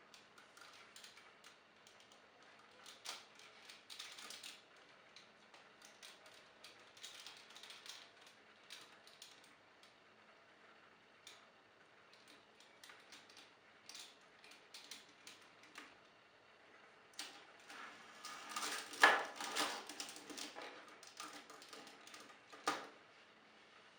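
Plastic parts of a Titan Megazord toy being handled and pegged together: scattered small clicks and light rattles, with a busier flurry of clicks and knocks about three quarters of the way through and one sharp click near the end.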